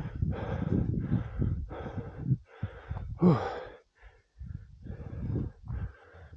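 A man breathing heavily, out of breath from the strenuous climb: about eight loud puffing breaths. The loudest, about three seconds in, is a voiced sigh that falls in pitch.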